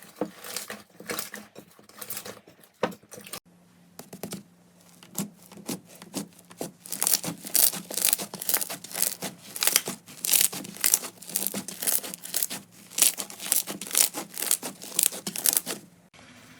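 Slime being handled, squeezed and pressed, giving quick crackling and popping sounds. Sparse and quieter at first, they become dense and louder from about the middle on.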